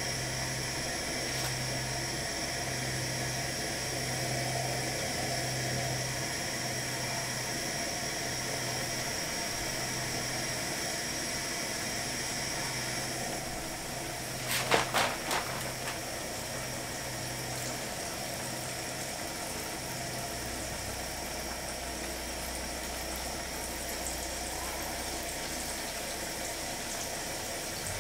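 Steady hiss of a gas burner under a pan of hot frying oil. About halfway through comes a quick run of sharp metal clinks, a utensil knocking against the pan.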